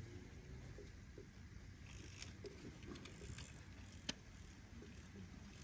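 Faint clicks and scrapes of toy monster trucks being handled on a toy track, with one sharper click about four seconds in.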